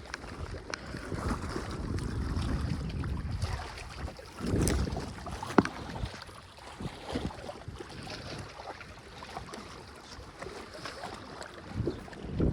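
Wind rumbling on the microphone, strongest in the first few seconds, with scattered handling knocks and one sharp click about five and a half seconds in.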